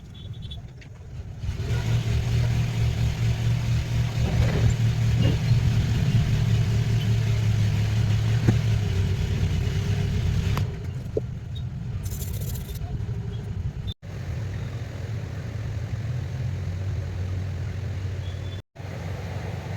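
A steady low hum with a noisy whoosh over it, starting about a second and a half in. It runs loud for the first half, then drops to a quieter level and cuts out abruptly twice.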